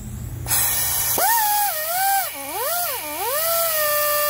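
Pneumatic air ratchet running a clutch nut down its stud, trigger feathered to snug the nut rather than fully torque it. A hiss of air starts about half a second in, then the motor whines, its pitch dipping twice before holding steady.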